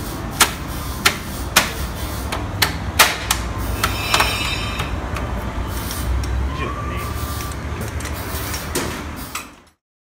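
Sharp knocks and clicks from handling a car's front wheel and its plastic wheel cover, over a steady low hum. The knocks come every half second to a second in the first half, the loudest about three seconds in, with a brief faint tone about seven seconds in. All sound stops just before the end.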